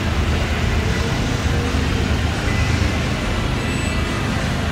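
Bass-heavy background music: a deep, steady low rumble throughout.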